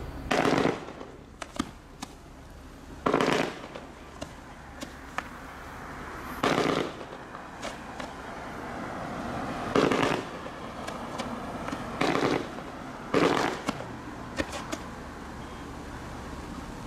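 Consumer fireworks cake (200-gram, 18-shot Brocade Crown Waterfall Mini) firing its shots one after another. Each shot is a loud burst lasting about half a second, about six in all and two to three seconds apart, with sharp lighter pops in between.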